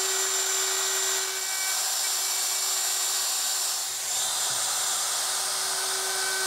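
Router fitted with a 1/4-inch roundover bit running at full speed and cutting along the edge of a wooden board to round it over: a steady high-pitched whine mixed with cutting noise, dipping briefly about four seconds in.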